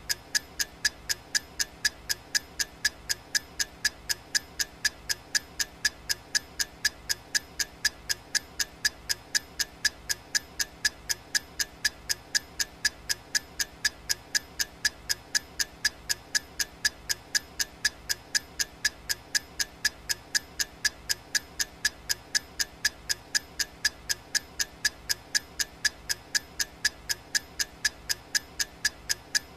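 Clock ticking sound effect of a countdown timer: sharp, even ticks repeating steadily at a little over two a second.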